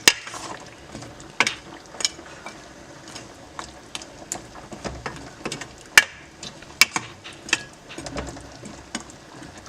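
A spoon stirring chicken curry with chunks of potato in a cooking pot, knocking and clicking against the pot at irregular moments, with the loudest knock about two-thirds of the way through.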